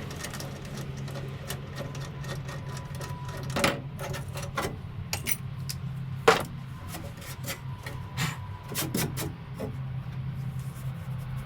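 Irregular clicks and knocks, with two louder knocks about four and six seconds in, over a steady low hum.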